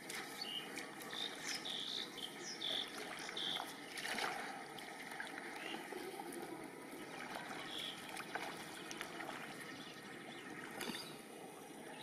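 Shallow paddy water sloshing and trickling as a person wades through it barefoot and feels through the water with his hands. Short high chirps repeat through the first few seconds.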